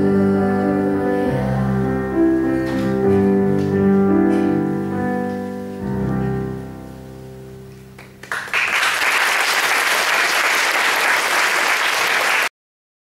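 Slow instrumental music with long held chords, fading out; about eight seconds in, audience applause breaks out and goes on until it cuts off suddenly near the end.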